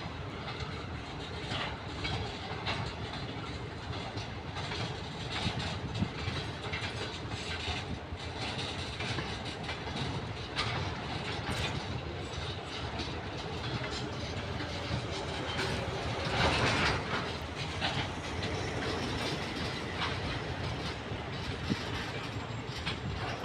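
TEM2 diesel shunting locomotive moving on station tracks, its wheels clicking over the rail joints. The noise swells briefly a little past the middle.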